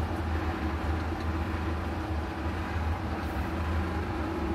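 Steady low hum with a faint even hiss over it.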